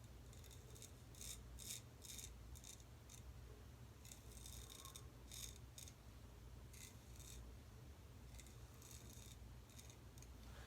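Faint, short scraping strokes of a Boker straight razor cutting stubble, about a dozen of them at an irregular pace.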